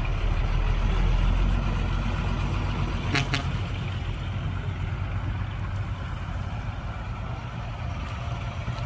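Heavy diesel engine running steadily, slowly fading, with a short sharp double clank about three seconds in.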